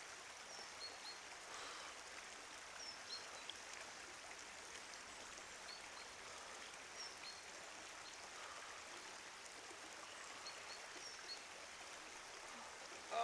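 Faint, steady trickle of running water, with small birds giving short high chirps now and then.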